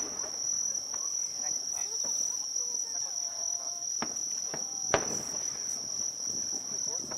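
Crickets chirring in one steady, high-pitched, unbroken tone, with faint voices of a crowd beneath. Two sharp cracks stand out about four and five seconds in, the second louder.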